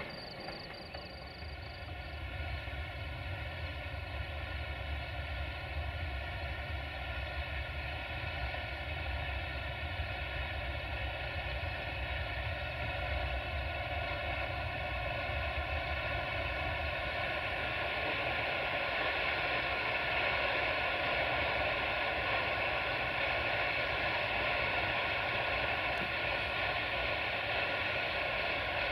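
CFR 060-DA (LDE2100) Sulzer diesel-electric locomotive working hard under load as it hauls a tanker freight train up a steep grade: a steady engine drone with a whine above it, growing gradually louder as the train approaches.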